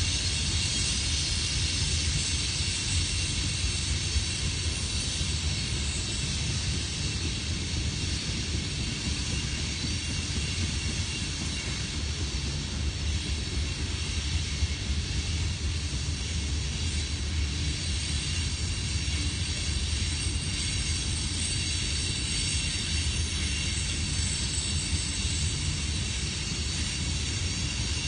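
Freight cars of a coal train rolling past: a steady rumble of steel wheels on the rails, with a hiss above it.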